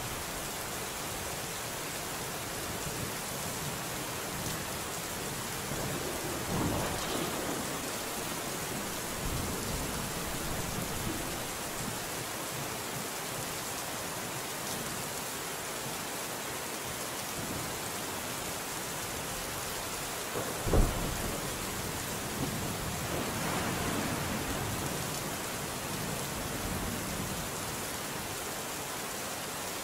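Steady rain falling, with thunder: a low rumble about a quarter of the way in, then a sudden thunderclap about two-thirds through, the loudest moment, followed by a longer rolling rumble.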